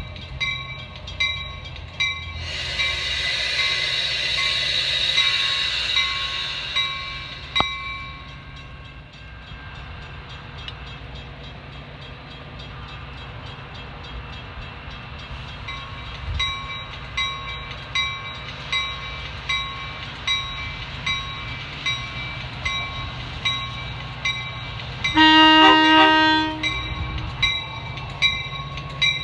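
Grade-crossing bells ringing in a steady, even rhythm of a little over one strike a second as a Metra commuter train approaches, with a rushing hiss for a few seconds early on. Near the end the train sounds one horn blast, about a second and a half long.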